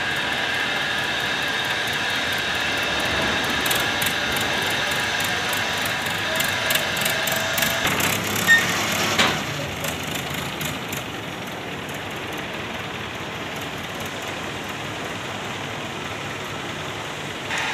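Mobile crane's engine running, with a steady hydraulic whine while it lowers a railway wheelset on chains. The whine stops about eight seconds in, followed by two loud metallic clanks about a second apart as the heavy steel wheelset comes down. The engine then runs on more quietly.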